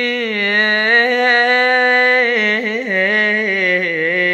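A young man singing unaccompanied in Iraqi style, holding one long drawn-out note with a wavering ornament in the middle and the pitch stepping down toward the end.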